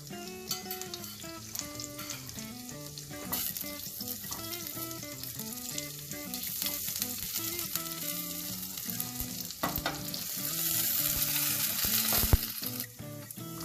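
Chopped garlic sizzling in hot ghee in a pan, with occasional clicks of a spoon stirring it; the sizzling grows louder about ten seconds in.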